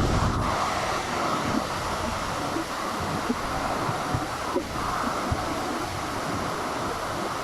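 A storm's steady rushing noise, heavy in the low end, with a few short knocks.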